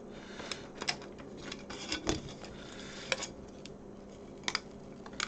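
Scattered light clicks and taps, about half a dozen spread over a few seconds, from handling the parts of a Sinclair QL keyboard during membrane replacement.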